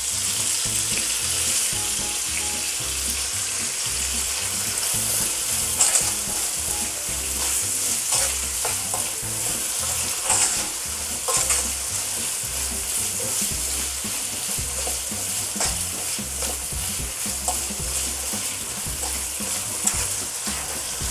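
Sliced onions sizzling in hot oil in a wok, being sautéed and stirred with a spatula that scrapes and knocks against the pan every few seconds.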